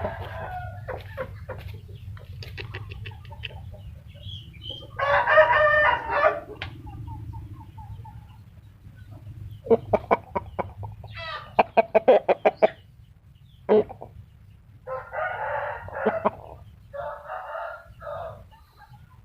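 Chickens calling: rooster crowing and runs of quick clucks about halfway through, over a steady low hum.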